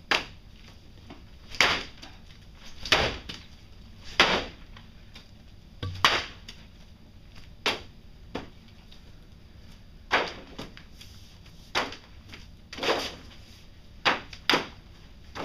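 A stuffed toy rabbit tossed down onto a hard surface again and again, each landing a sharp thump, about one every second or so, some in quick pairs.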